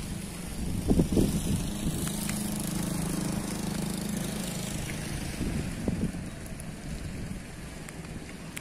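DZ-130 automatic boom barrier's brushless motor and two-stage worm-gear drive humming steadily for about four seconds as the arm swings down. A couple of thumps, the loudest about a second in.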